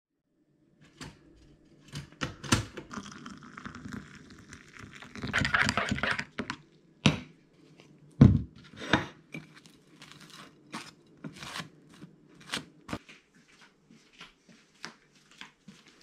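A metal spoon stirring coffee in a ceramic mug, with a stretch of scraping and clinking, among many small clicks and knocks and a few heavier knocks.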